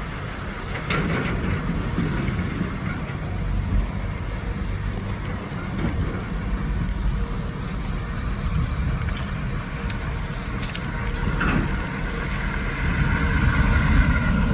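Airbus A320 taking off: a steady, heavy rumble of its twin jet engines, with a whine that grows louder near the end.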